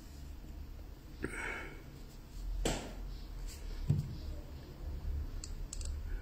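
Faint hand-handling noises of thin jewelry wire being wrapped around a pearl on a wire ring frame, with two short breathy puffs and a few small ticks near the end.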